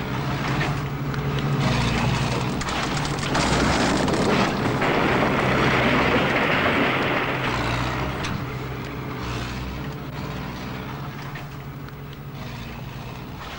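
Bulldozer's diesel engine running steadily under a long rushing clatter, demolition rubble being pushed and falling, that swells about a second in and dies away after about eight seconds.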